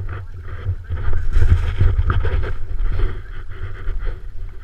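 Low, ragged rumble of wind buffeting and handling noise on a small action camera's microphone, with a rustle over it; loudest between about one and two seconds in.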